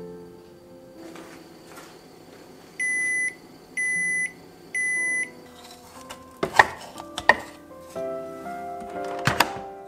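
Electronic beeper of a rice cooker sounding three even, flat beeps, each about half a second long and about a second apart, followed by a few sharp clacks.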